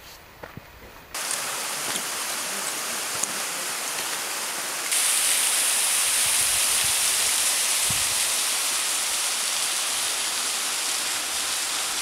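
Steady rush of water falling through a partly frozen waterfall, the water still running behind the icicles. It comes in suddenly about a second in and grows louder and hissier about five seconds in. Before it, a few soft steps on snowy ground.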